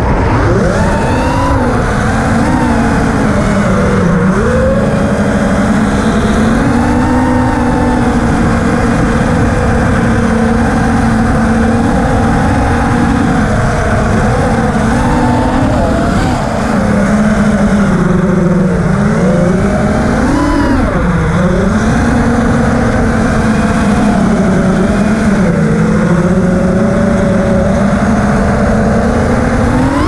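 FPV quadcopter's brushless motors and propellers buzzing, the pitch rising and falling continually with the throttle, with a quick climb in pitch near the end.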